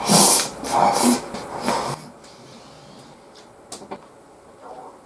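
A man slurping and shovelling beef-bowl rice into his mouth from the bowl rim with chopsticks: three loud, airy slurps in the first two seconds. After that comes quieter chewing with a few small clicks.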